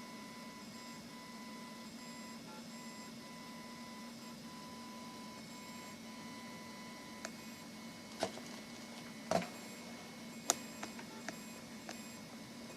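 A Lowrider2 DIY CNC machine with a Neje laser module running. There is a quiet steady hum, and a thin high tone above it that pulses at first and then holds steady. A handful of sharp clicks come in the second half.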